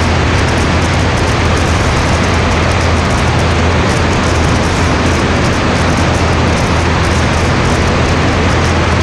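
Light airplane in flight heard from a wing-mounted camera: steady wind rush over a low engine drone, with no change in pitch or level.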